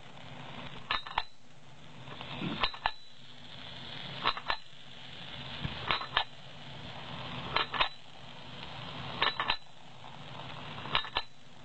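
Automatic paddu (rice appe) making machine running in regular cycles: a pair of sharp metallic clinks about every second and a half over a steady machine hum.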